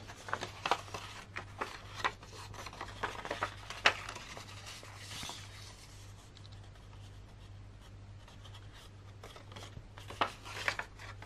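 Thin paper rustling and crinkling as it is bent and folded by hand along scored lines, in scattered small rustles and ticks; quieter for a few seconds in the middle, busier again near the end.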